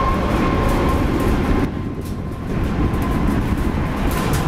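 Boeing 737 MAX 8's CFM LEAP-1B jet engines running at high power as the airliner rolls down the runway: a loud, steady rumble with a steady whine over it. The upper part of the sound drops away abruptly about a second and a half in, while the rumble continues.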